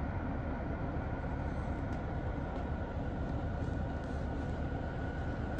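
A steady low rumble with hiss over it and a faint, steady high whine, broken only by a couple of light ticks.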